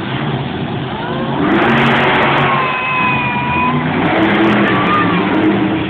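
Grave Digger monster truck's engine revving hard, swelling louder about a second and a half in and holding high revs.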